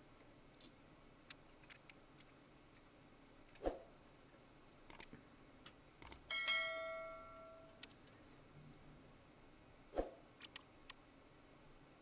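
Small clicks and knocks from hands and tools working on a mixer console's casing, with two sharper knocks. About six seconds in, a metal part rings briefly and fades over a second or so.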